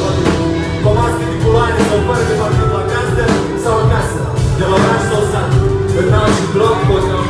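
Live band music with a lead vocal sung into a microphone, over keyboard and drums keeping a steady beat.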